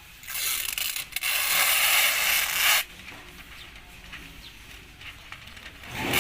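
Compressed air hissing in two bursts: a long one of about two and a half seconds, then another starting near the end.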